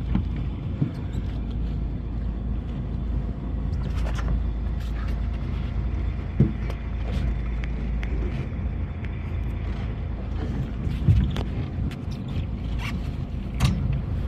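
A boat's engine running steadily, with water and wind noise around the hull and a few short sharp knocks.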